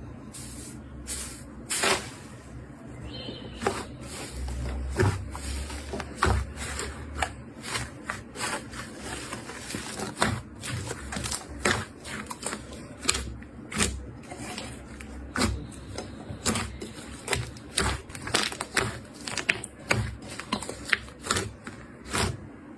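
Slime being squeezed and pressed by hand, giving irregular sharp clicks and crackles, a few each second.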